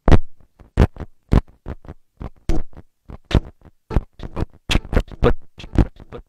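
Vinyl record on a DJ turntable cut in and out at the mixer, giving a fast, uneven string of short, sharp noise stabs, about four a second, with brief silences between them.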